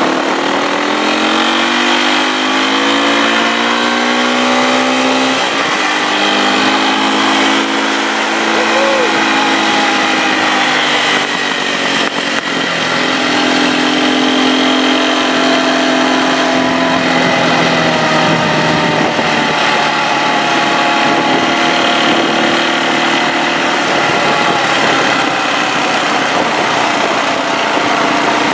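Nissan Patrol engine pulling the 4x4 along off-road. Its pitch climbs over the first few seconds as it accelerates, drops briefly about five seconds in, then holds a steady note with slow rises and falls.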